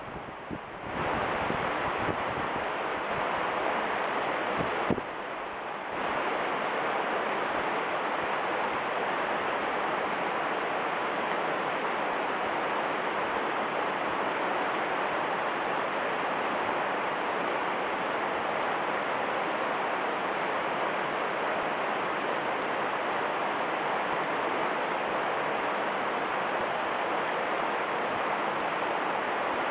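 Salmon River water rushing steadily, a full even roar of a fast mountain river, heard from mid-stream. There is a single brief knock about five seconds in.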